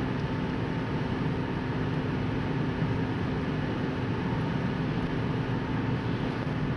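Steady road noise and engine hum heard from inside a moving car's cabin at road speed.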